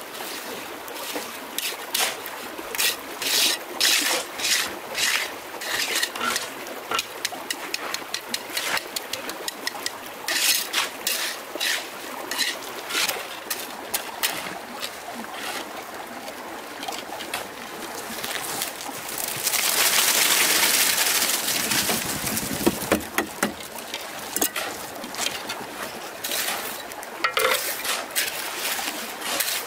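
Irregular sharp knocks and clatters over a background of trickling stream water, with a louder rushing, splashing noise for about two seconds roughly twenty seconds in.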